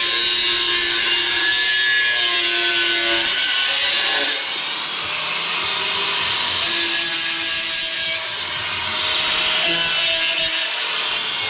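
Power tool grinding sheet steel on the truck body, a steady harsh abrasive noise that dips briefly about four seconds in, with faint background music under it.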